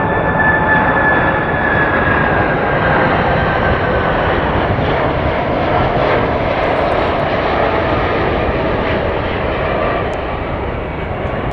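Boeing 747 freighter's four jet engines on final approach, passing low: a loud steady roar with a high whine that slowly falls in pitch over the first half, easing slightly near the end as the jet flares over the runway.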